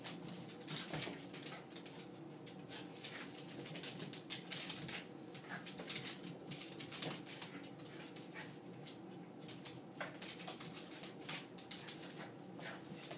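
Two small dogs play-fighting on a hardwood floor: a busy, irregular run of short clicks and scuffles from claws and paws on the wood, with the dogs' own play noises mixed in.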